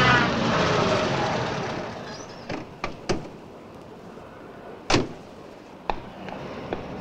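Cartoon sound effect of a car driving up and stopping, its engine noise falling in pitch and fading over the first two seconds, followed by several light car-door clicks and one louder door slam about five seconds in.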